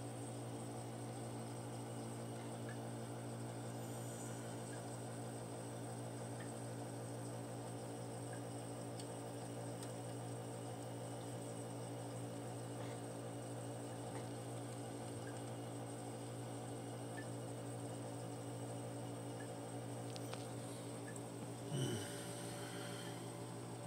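Steady low electrical hum with a faint, steady high whine, unchanging throughout; a brief louder sound comes near the end.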